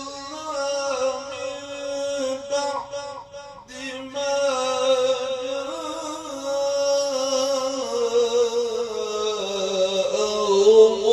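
A man's voice reciting the Quran in the melodic mujawwad style: long held, ornamented notes on drawn-out syllables. There is a short break for breath about three and a half seconds in, and the pitch slides down near the end.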